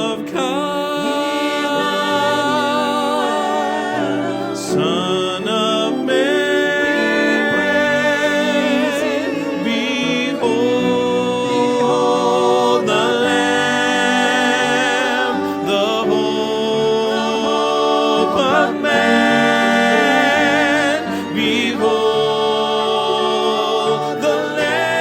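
Music: voices singing long held notes with strong vibrato, in a choir-like blend, over steady sustained accompaniment.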